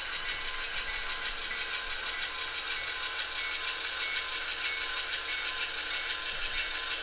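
Sound decoder in an HO-scale model diesel locomotive playing a diesel engine running steadily through its small onboard speaker as the locomotive slowly shoves a refrigerator car.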